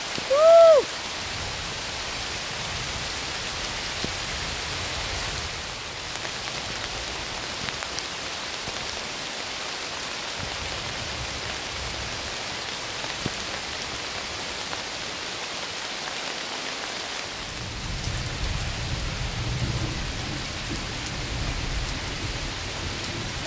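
Heavy rain falling steadily, with a low thunder rumble building over the last several seconds. Just after the start there is one brief, high-pitched voice-like sound, the loudest moment.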